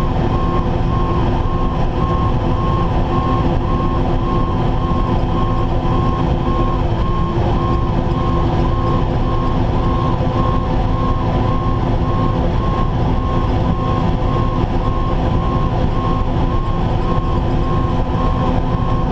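Fire apparatus cab interior: steady engine and road rumble with a fixed drone, and a warning beeper sounding in a quick, regular on-off pattern throughout.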